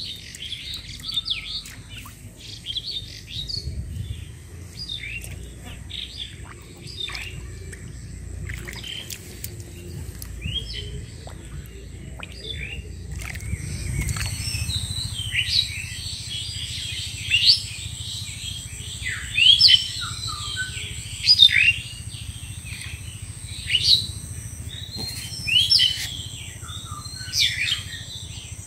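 Many small birds chirping and calling, growing busier and louder about halfway through, with a loud call repeating about every two seconds in the second half.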